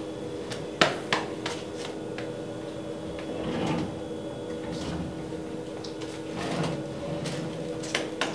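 Kitchen cabinets being handled during a search: a cluster of sharp knocks and clicks about a second in, softer rummaging around four and six and a half seconds, and more knocks near the end, over a steady low hum.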